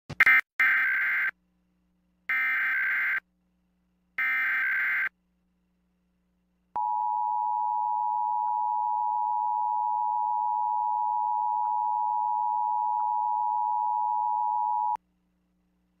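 Emergency Alert System broadcast tones: three bursts of about a second each of SAME header data, a buzzy digital warble, then, after a short gap, the steady two-tone EAS attention signal (853 and 960 Hz) held for about eight seconds before it cuts off. Together they open an EAS Required Monthly Test.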